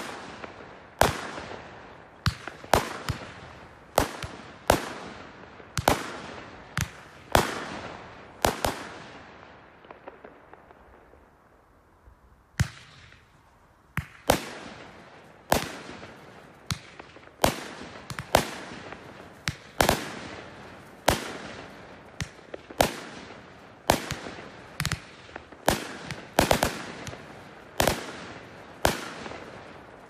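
Fireworks going off in rapid succession: dozens of sharp bangs, one to two a second, each trailing off in an echo, with a lull of about three seconds a third of the way in before the bangs resume.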